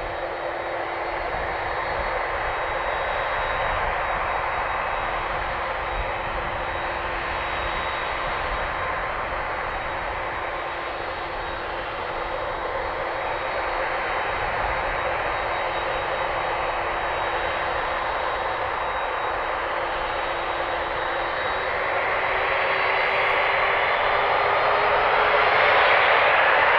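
Boeing 767 jet engines running with a steady whine. About 21 seconds in, their pitch starts rising and the sound grows louder: the engines spooling up to takeoff power on the runway.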